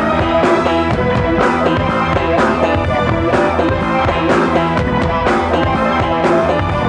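Background music with a steady beat, a strong hit about once a second.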